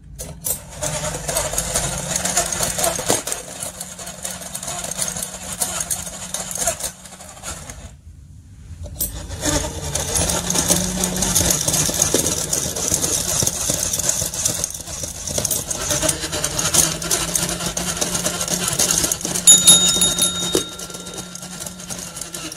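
Battery-powered Choken-Bako dog coin bank's small motor and plastic gears whirring as the mechanical dog bows its head into its bowl to eat a coin. It runs for about seven seconds, stops for about two, then runs again for longer, with a short high tone near the end.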